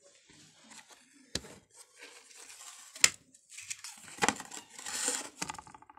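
Handling noise from a small wet-clay chulha being worked and its board being moved: three sharp knocks spread out, the loudest about halfway through, and a rustling, scraping stretch just after.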